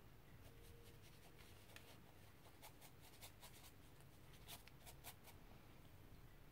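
Faint scattered scratches and swishes of a round watercolour brush stroking paint onto gesso-coated sketchbook paper.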